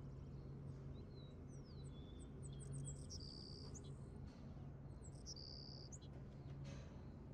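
A steady low hum, with high bird chirps and short repeated song phrases over it about a second in until near six seconds.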